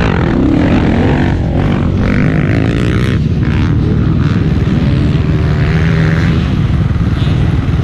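Motocross dirt bike engines running, the pitch rising and falling as the throttle is worked.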